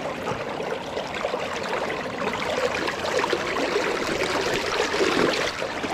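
Flowing river water close by, a steady babble and splash that grows a little louder about three to five seconds in.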